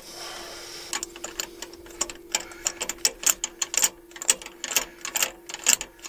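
Socket ratchet clicking in short, irregular runs as a spark plug is unscrewed from the engine, over a faint steady hum.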